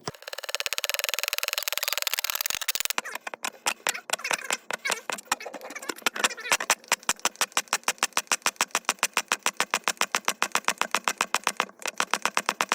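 Hand siphon pump being worked quickly to draw old oil out of a supercharger, clicking evenly about five or six times a second, with a hiss of drawn air over the first few seconds.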